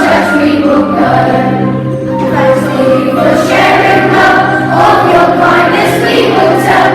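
Children's choir singing a harvest song together over a musical accompaniment with long held low notes.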